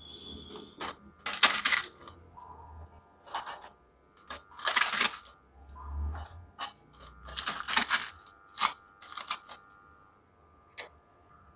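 Crisp deep-fried semolina puri being crushed by hand into pieces, cracking and crunching in a string of irregular bursts.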